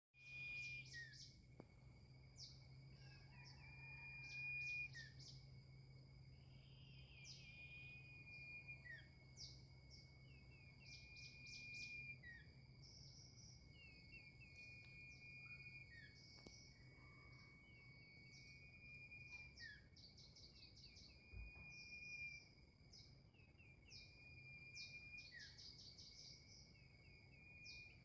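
Faint bulbul (merbah lilin) song from a caged decoy bird: short, quick chirping phrases and little down-slurred notes repeated every second or two, over a steady high insect drone.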